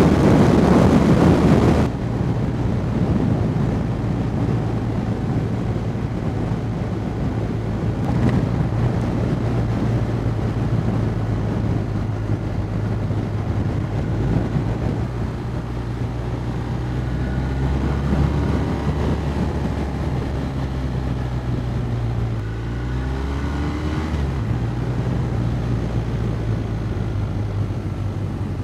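BMW R1250R's 1254 cc boxer twin running under way, heard with wind noise from riding. The wind rush is loud for about the first two seconds, then drops away, leaving a steady low engine note that shifts in pitch a few times, with a brief rise in pitch about 23 seconds in.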